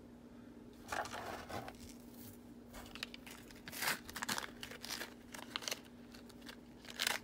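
Small clear plastic zip-lock bags crinkling and rustling as they are handled, in scattered irregular bursts starting about a second in.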